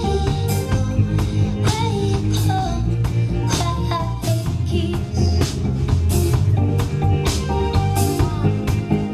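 Live band playing a rock song: a woman singing over semi-hollow electric guitar, electric bass and a drum kit.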